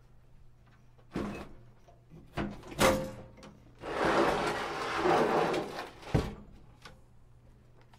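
Fan-mounted front panel of a heavy steel instrument case being pulled open by hand: a few clunks, then about two seconds of metal scraping as it slides out, ending in a final clunk.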